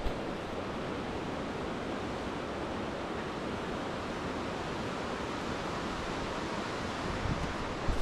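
Steady rushing water of Shirahige Falls and the Biei River, an even, unbroken wash of noise.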